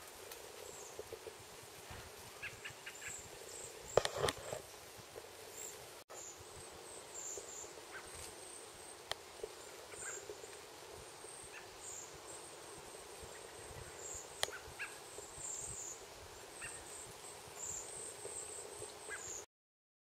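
Cedar waxwings giving many short, very high-pitched calls, scattered through the whole stretch, with a brief loud crackle about four seconds in. The sound cuts off suddenly just before the end.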